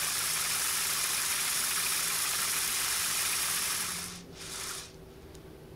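Large brushless ring motor under field-oriented control, driven by an L6234 driver, spinning its rotor back to the zero set point with a steady hiss. The hiss cuts off about four seconds in, comes back briefly half a second later as the rotor settles, then dies away.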